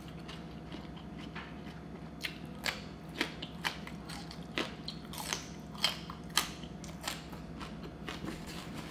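A person chewing raw vegetables up close, with a run of sharp, irregular crunches that starts about two seconds in and thins out near the end, over a faint steady hum.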